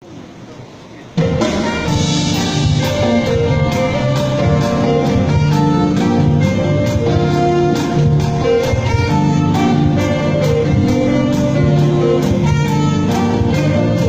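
Instrumental gospel hymn played by an orchestra with drum kit and brass. After a soft first second the full band comes in suddenly, with steady drum and cymbal strikes under the melody.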